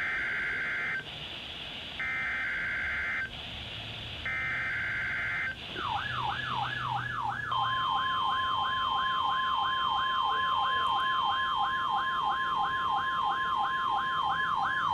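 NOAA Weather Radio Emergency Alert System test over a radio receiver. It opens with three one-second bursts of the SAME digital header, with radio hiss between them. Then a warbling alarm starts, rising and falling about three to four times a second, and about 7.5 seconds in the steady 1050 Hz Warning Alarm Tone joins it.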